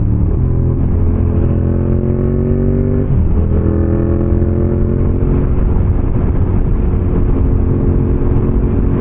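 Motorcycle engine accelerating through the gears: its pitch rises, drops at an upshift about three seconds in, climbs again, then settles to a steady cruise.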